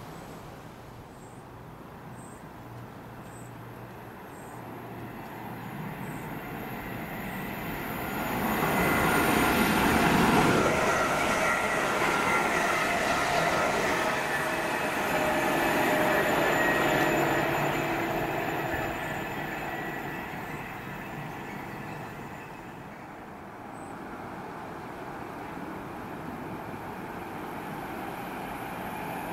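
London Northwestern Railway Class 350 Desiro electric multiple unit running through the station. Its sound builds to a peak about ten seconds in, with steady whining tones over the rumble of the wheels, then fades away after about twenty seconds. Near the end a second Class 350 is heard growing louder as it approaches.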